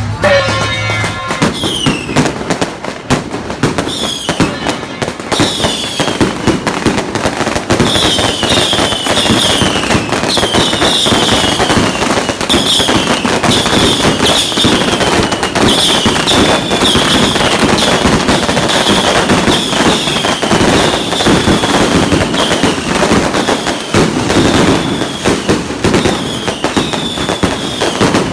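Strings of firecrackers going off in a dense, continuous crackle, with short falling whistles repeating over it.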